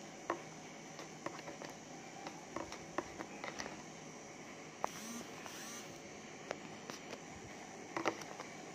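Cup noodles being eaten with wooden chopsticks: scattered sharp clicks and taps from the chopsticks in the paper cup and from chewing, and a short noisy slurp about five seconds in, over a steady low hiss.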